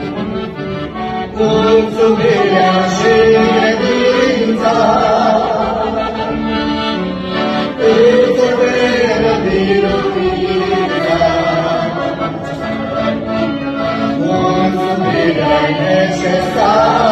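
A religious song sung to instrumental accompaniment: a sung melody over steady held chords.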